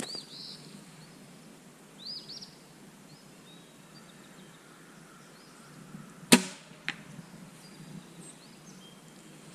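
Horton Yukon SL crossbow fired once about six seconds in, a single sharp snap, followed about half a second later by a fainter knock. Birds chirp briefly in the background.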